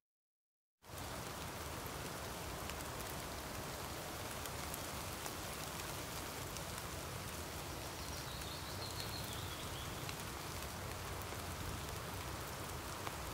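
Steady rain falling, a constant patter that starts after a moment of dead silence.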